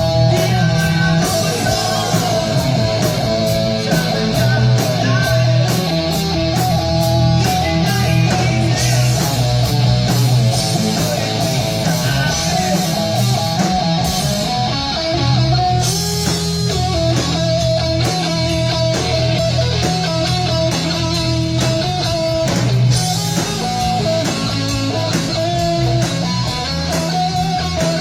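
Live rock band playing: electric guitar carrying a sustained melody line over bass and drum kit, with the cymbals briefly dropping out about halfway through.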